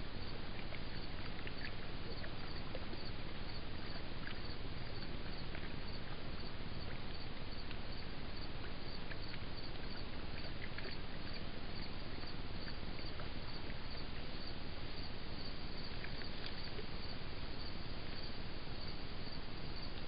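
Steady hiss from a trail camera's built-in microphone, with faint scattered ticks.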